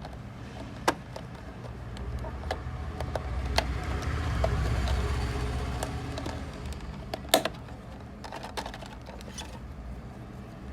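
A few sharp clicks and taps from handling the earphones and their packaging, the loudest about seven seconds in, over a low rumble that swells in the middle and fades.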